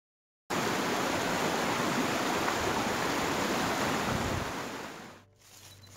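Fast mountain stream rushing over rocks: a steady, loud rush of water that starts abruptly about half a second in and fades away near the end.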